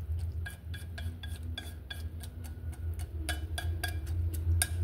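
Wooden chopsticks stirring soaked glutinous rice and mung beans in water in a rice cooker's inner pot, clicking and tapping against the pot several times a second. A steady low hum runs underneath.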